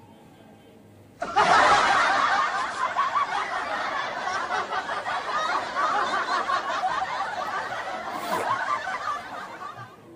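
Laughter from several people, a dense run of snickering and chuckling that starts abruptly about a second in and stops near the end.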